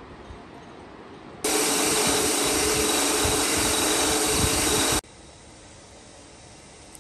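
A small motor running steadily and loudly, starting abruptly about one and a half seconds in and cutting off about five seconds in.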